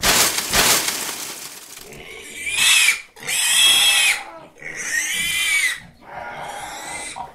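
A sudden whoosh of fire flaring up that fades away over about two seconds, then a pig squealing four times. Each squeal rises and then falls in pitch.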